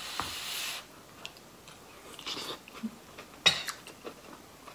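A short breathy rush of air at the lips over a spoonful of hot curry, then a sharp clink of a metal spoon against a ceramic bowl about three and a half seconds in.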